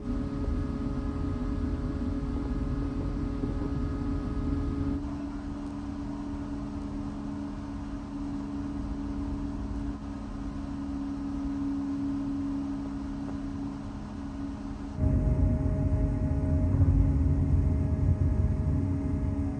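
Steady low drone of a large car ferry's engines and machinery with a constant hum, heard while the ship comes alongside the quay; about three-quarters of the way through the low rumble grows clearly louder and heavier.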